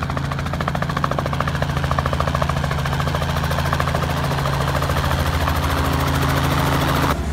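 Light helicopter with a two-bladed main rotor coming in low to hover over a helipad: steady engine and rotor sound with a fast, even chop of the blades, growing a little louder. It cuts off abruptly near the end.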